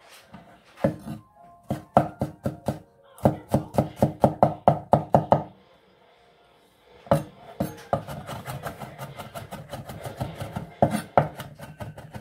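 Large kitchen knife chopping garlic cloves on a wooden cutting board. A few separate cuts come first, then a steady run of about five strokes a second. After a short pause there is faster, continuous mincing.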